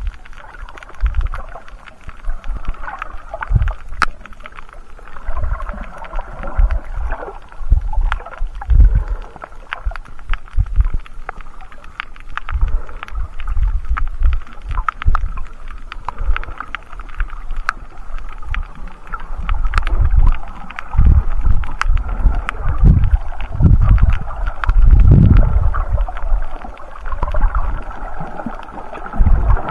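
Underwater sound picked up by a camera carried by a swimming snorkeller: irregular low rumbles and thumps of water moving around the camera, over a steady hiss, with scattered sharp clicks.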